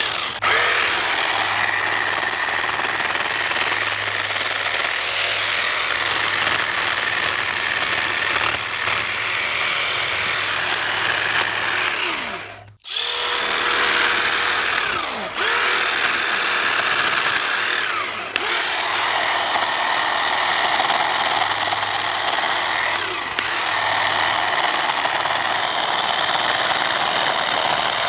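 Wild Badger 40V cordless pole hedge trimmer running, its reciprocating blades chattering as it cuts brush. The motor stops briefly about halfway through and spins back up, with a few shorter dips later on.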